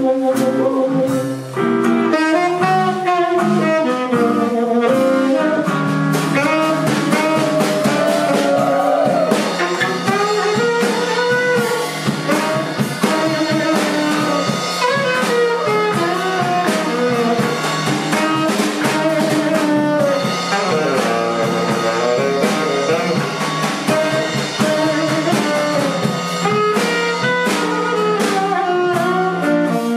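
Live blues band playing: a saxophone carries the melody over drum kit and guitar, with a steady beat.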